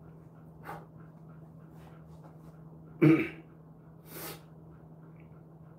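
A Jindo dog sneezing once, sharply, about three seconds in, with a softer huff of breath shortly before and about a second after, over a steady low hum.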